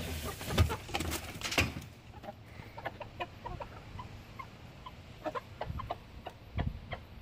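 Domestic hens clucking, short low notes coming every half second or so. Knocks and rustling dominate the first two seconds.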